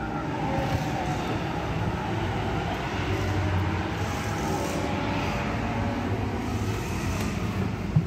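Steady rumble of vehicle engines and traffic running nearby, with a low hum that swells and fades in the middle.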